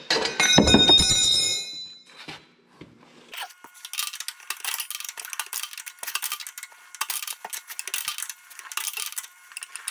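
Metal tools on the Ford 3000 tractor's hydraulic pressure line fitting: a loud ringing clank about half a second in, then a long run of quick metallic clicking and scraping while the compression fitting nut is tightened with a wrench.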